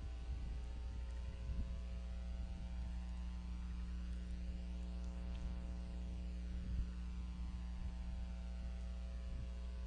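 Steady electrical mains hum with a buzzy stack of overtones, picked up on a nest camera's audio feed. A few faint low thumps come through it, the loudest about seven seconds in.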